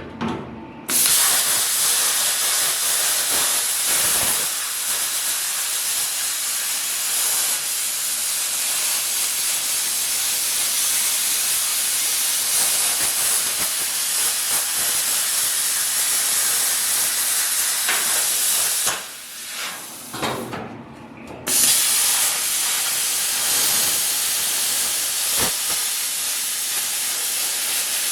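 Welder laying a weld: a steady hiss that starts just under a second in, stops for about two seconds around two-thirds through, then starts again.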